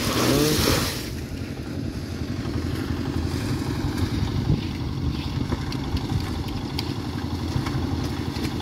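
A small engine running steadily at low revs, with a louder noisy rush in the first second.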